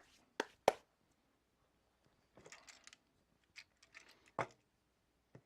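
Handling of the new dimmer switch and its wires: two sharp clicks near the start, a short scratchy rustle in the middle, then a few more clicks.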